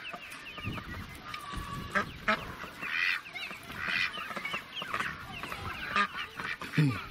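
Domestic ducklings peeping, many short high calls in quick succession, mixed with the honking calls of adult farmyard ducks.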